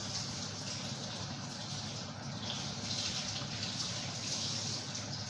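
Steady, even hiss from a large lidded aluminium pot cooking on the stove, with a low hum beneath it.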